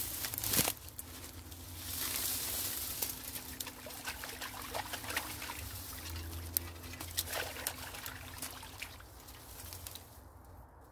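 Dry reeds crunching and rustling as a person pushes through them and kneels at a pond's edge. Then water trickles and splashes as a sooty collapsible metal wood-burning camp stove is rinsed in the pond.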